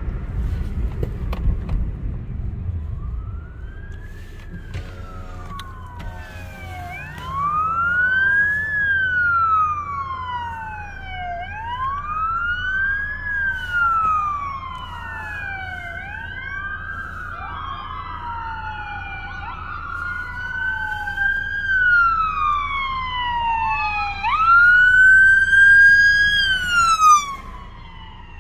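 Several police car sirens wailing at once, each rising and falling in slow sweeps out of step with the others. One comes much louder and closer about three-quarters of the way through. Under them is the low road rumble of the car they are heard from.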